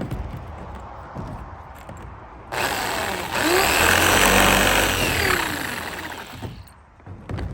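Jigsaw making a short test cut in a fiberglass van roof, starting about two and a half seconds in and running for about four seconds. The motor's pitch rises and falls as it speeds up and slows before stopping.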